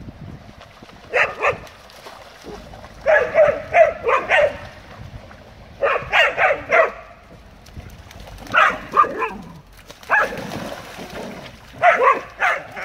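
Dogs barking during rough play, in quick runs of a few short barks every second or two.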